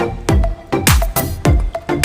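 Electronic dance music with a steady beat of deep kick drums, a little under two a second, each dropping in pitch, with a melody between them.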